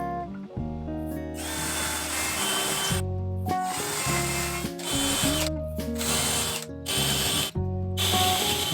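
Power drill boring handle holes through cabinet doors in a string of short runs, starting about a second in, each stopping and starting abruptly. Background guitar music plays under it.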